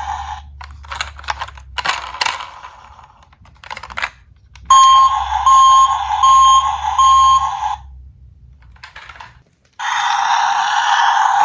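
Scattered clicks and rattles of toys being handled, then a toy emergency vehicle's electronic sound unit beeping: four evenly spaced, high electronic beeps. A louder, continuous electronic sound starts near the end.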